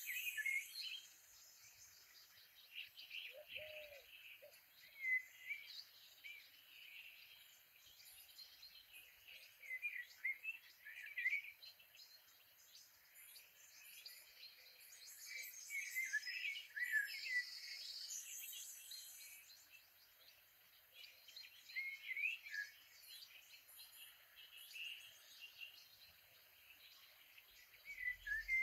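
Background nature recording of birds chirping: clusters of short, quick calls that come every few seconds, with one brief lower call about three and a half seconds in.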